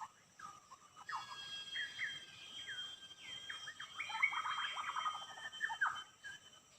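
A songbird calling in short, quick chirps and slurred notes, thickening into a fast run of chirps about four seconds in.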